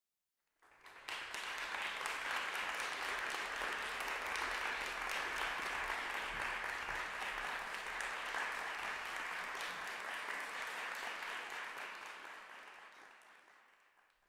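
Audience applauding, starting about a second in and dying away over the last two seconds.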